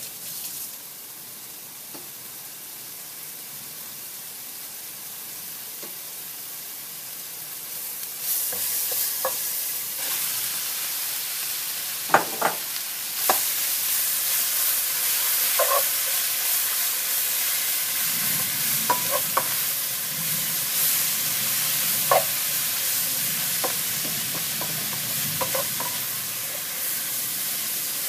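Stir-frying in an F4 Blue Diamond nonstick wok: a light sizzle builds slowly, then turns much louder about a third of the way in as green vegetables go into the hot oil. A wooden spatula knocks and scrapes against the pan now and then as the greens are tossed.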